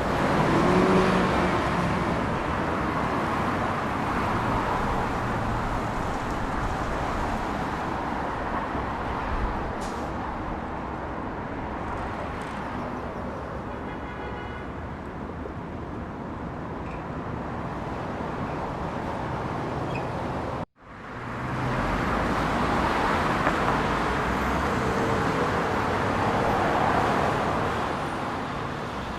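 Rushing wind and propeller noise from an FPV quadcopter in flight, swelling and easing as it dives. The sound cuts out suddenly for an instant about twenty seconds in, then fades back.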